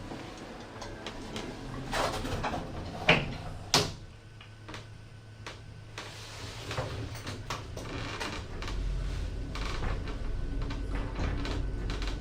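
Lift doors sliding and closing, with a few sharp knocks, then a steady low hum about two-thirds of the way through as the lift car starts to travel.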